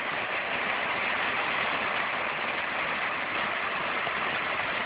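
Steady rain, an even hiss that holds constant throughout.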